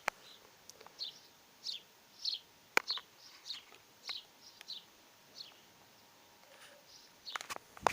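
A small bird chirping: a run of short, high, falling chirps repeated about every half second, fading out after about five seconds, with a few sharp clicks, the loudest near three seconds in.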